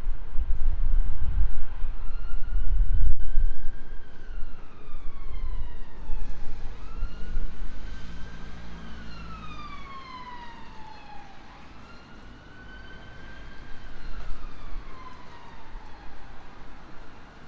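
Emergency vehicle siren wailing, its pitch rising and falling slowly through about three long sweeps. Beneath it is a low rumble that is loudest in the first few seconds.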